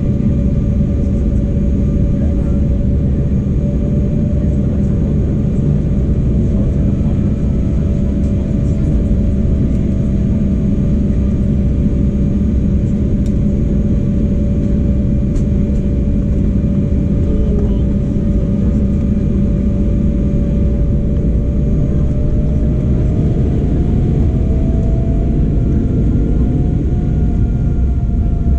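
Embraer 195 cabin noise while taxiing: its two General Electric CF34-10E turbofans run at low power under a steady low rumble. A steady engine whine wavers slightly in pitch and rises a little near the end.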